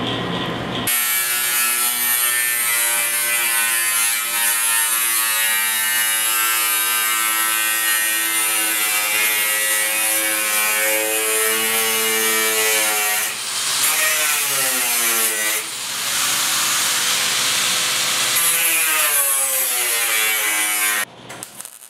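Electric angle grinder with a thin cut-off wheel cutting through sheet steel: a steady, high, many-toned whine that comes in about a second in, sags in pitch and recovers a few times as the wheel loads in the cut, and stops about a second before the end.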